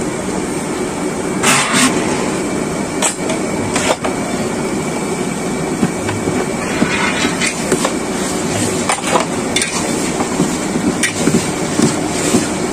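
A long metal spatula stirring chicken curry in a huge iron kadai, its blade scraping and knocking against the pan at irregular moments every second or two, over a steady roar from the gas burner underneath.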